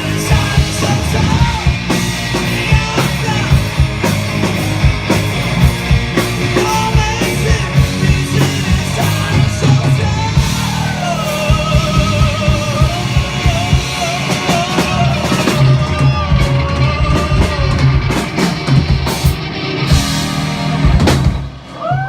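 Live rock band playing a song: drum kit, guitar and bass under a sung vocal line. The music cuts off about a second before the end as the song finishes.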